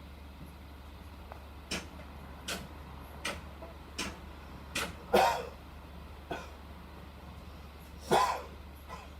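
Inside a city bus cabin, a low steady engine hum carries a run of sharp clicks about three-quarters of a second apart. Two louder short sounds follow, about halfway through and near the end.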